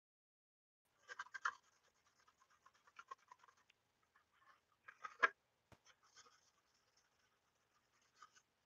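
Scuff pad rubbing over a football helmet's plastic shell in faint, scratchy strokes, in several spells with short pauses and one sharper tap just after five seconds. The rubbing dulls the last shiny spots of the shell so that paint will grip.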